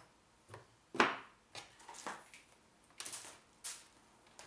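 Heathkit IM-13 VTVM test probe and its leads being handled on a wooden workbench: a sharp knock about a second in, then several lighter clicks and rustles.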